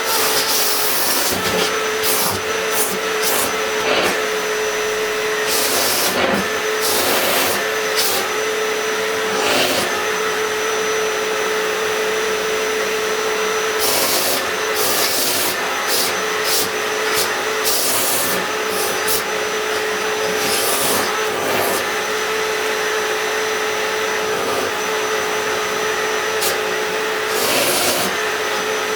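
Vacuum cleaner running with a steady motor whine, broken by frequent short bursts of rushing, hissing air noise.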